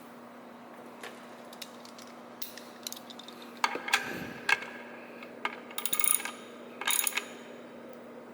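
Wrench tightening the mounting bolt of a motorcycle horn bracket: irregular metal clicks and clinks, a few at a time, growing busier and louder in the second half.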